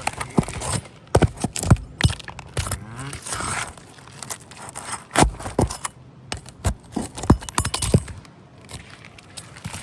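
Irregular clicks, knocks and a scrape of hand work on asphalt roof shingles, with the loudest knocks near the middle.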